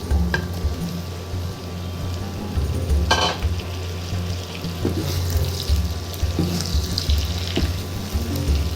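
Chicken frying in oil in a pan, sizzling, with a sharp knock or scrape against the pan about three seconds in.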